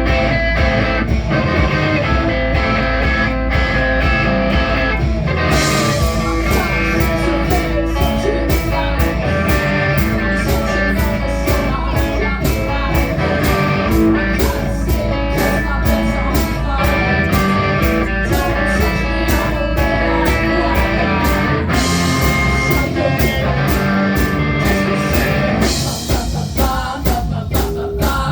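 Rock band playing live, with electric guitars, bass, drums and a singing voice; the cymbals and drums come in fuller about five seconds in.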